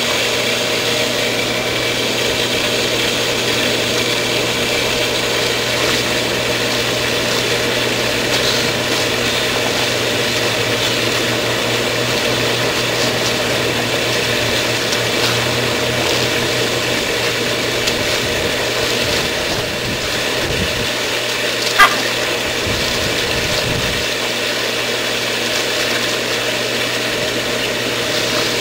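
Swimming-pool pump motor running steadily during a filter backwash, a constant mechanical hum with a few fixed tones. A single sharp click about three-quarters of the way through.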